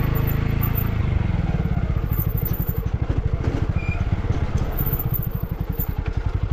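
Motorcycle engine running at low revs with a rapid, even pulsing, a little heavier in the first second; the rider says the bike is acting up.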